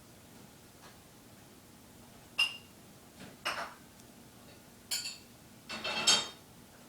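A few sharp clinks and knocks of hard objects being handled, four in all, ending with a short clatter, the loudest of them.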